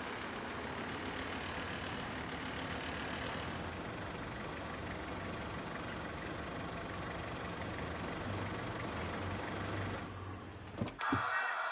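Car engine running as the car pulls up and stops at the kerb, a steady hum; about ten seconds in the noise drops away, followed by a few sharp clicks.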